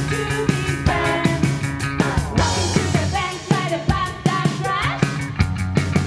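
Background rock music with a steady drum beat and a singing voice.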